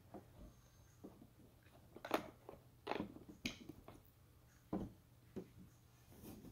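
Wet squelches and small splashes as fingers squeeze and pull apart a soft, fibrous mass in a small plastic bowl of water: about half a dozen short separate sounds, the loudest about two seconds in.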